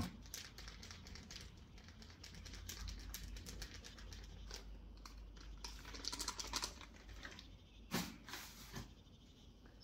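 Quiet, irregular light clicks and rustling from handling food and utensils while marinating shrimp, with one sharper click about eight seconds in.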